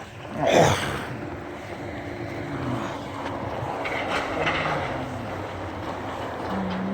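Creek water rushing steadily, mixed with traffic noise from a road above. A brief louder sweep rises and falls about half a second in.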